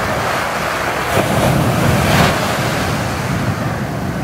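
Sea waves washing, with wind buffeting the microphone: a steady rush that swells once around the middle.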